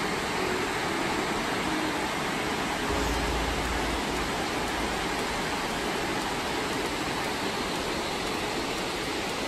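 Reservoir water overflowing a concrete dam spillway and falling down its face: a steady rush of water.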